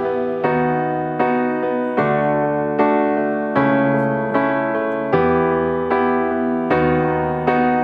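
Background music: a gentle piano or electric piano playing chords at an even, unhurried pace, about one struck chord every three-quarters of a second, each fading before the next.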